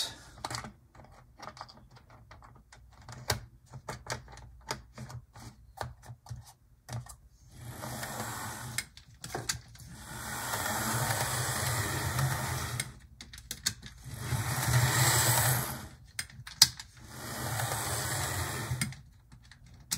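HO-scale model diesel locomotive, a Gutzold Deutsche Reichsbahn V 200, running on sectional track with a hollow roadbed: its small motor and wheels whir, swelling and fading several times as it runs back and forth. The first several seconds hold only scattered clicks as it is handled and set on the rails.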